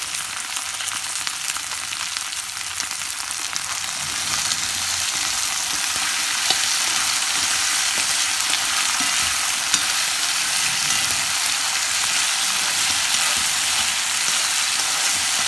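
Small potato pieces frying in hot oil in a pan: a steady sizzle that grows louder about five seconds in, with a couple of sharp ticks.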